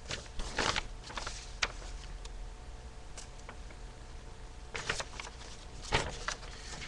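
Sheets of paper being handled and turned over: short, scattered rustles and crinkles, grouped near the start and again around five and six seconds in.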